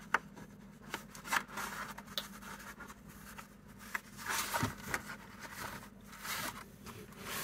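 Photo print and cardboard mount being handled: paper and card rubbing and sliding with small ticks, as a loose photograph is worked back into its mount. The rustling is busiest around the middle and again a little later.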